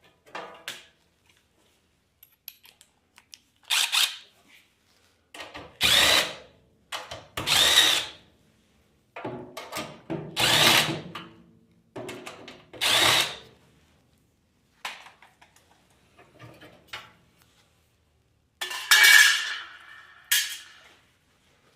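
Power drill driver running in short runs of about a second, six or so times with pauses between, backing out the screws that hold a kerosene torpedo heater's cover.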